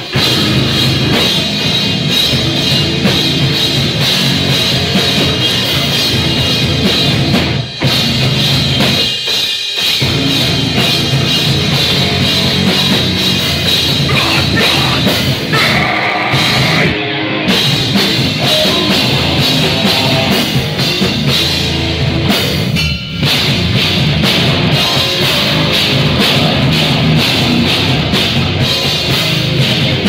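Heavy metal band playing live and loud: a pounding drum kit and distorted guitars, with harsh screamed vocals through the microphone around the middle. The band stops for a split second a few times.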